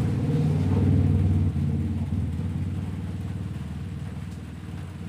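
A low engine drone with a fine even pulsing, loud at first and fading steadily over a few seconds.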